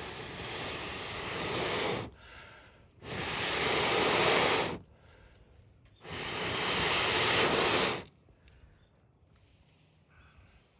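Someone blowing long breaths of air into a bed of glowing hardwood embers to liven them: three rushing, breathy blows of about two seconds each, separated by short pauses.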